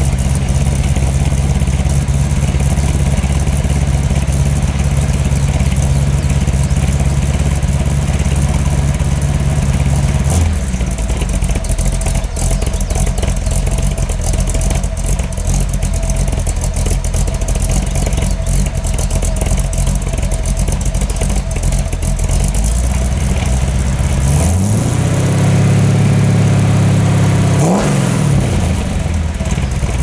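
Exhaust of a C3 Corvette's 454 big-block V8 through Magnaflow mufflers with an H-pipe crossover, on a partially warmed-up engine. It idles at a steady, slightly raised speed, then settles to a lower idle about ten seconds in. Near the end it is revved once, held up for about three seconds, and drops back to idle.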